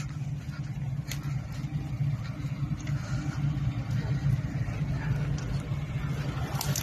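Suzuki Vitara's engine idling steadily close by, a low even drone.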